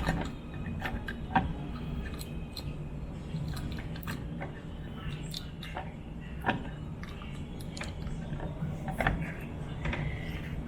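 Scattered clicks, taps and rustles of small plastic device parts being handled and fitted together by hand, over a steady low hum.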